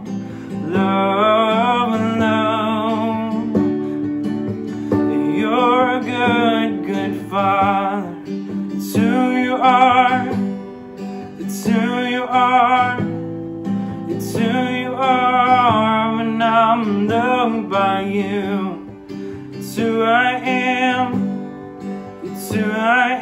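Worship song: strummed acoustic guitar under a singer holding long, wavering notes.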